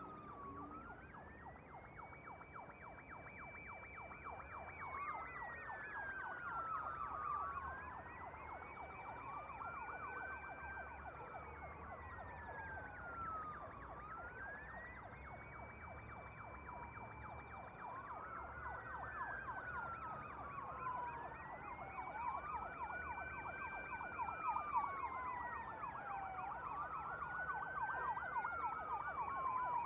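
Two distant emergency-vehicle sirens wailing at once. Each slowly rises in pitch, holds, then falls in a cycle of about six seconds, one pitched higher than the other, growing slightly louder, over a faint low rumble.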